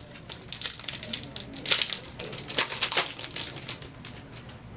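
Crinkling and tearing of a foil trading-card booster pack wrapper being handled and opened: a run of quick, irregular crackles that dies away about three and a half seconds in.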